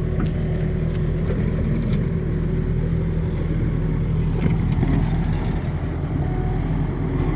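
Skid steer loader's engine running steadily, a constant low hum.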